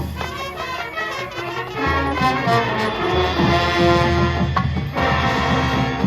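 High school marching band playing: brass holding sustained chords over a steady low bass line, with a few sharp drum strikes.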